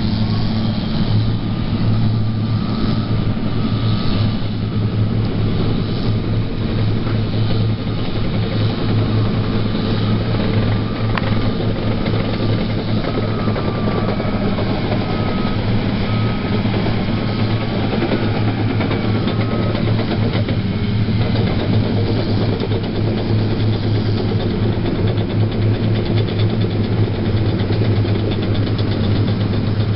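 Caterpillar D6R XW bulldozer's diesel engine running steadily under a constant low drone. A repeating high beep sounds over it from about two seconds in until about twenty seconds in.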